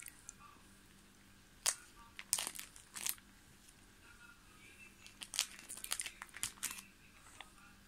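Plastic pocket pages of a trading-card binder crinkling and rustling as they are handled and turned. The rustles come in two bunches, one around two to three seconds in and another from about five to seven seconds in.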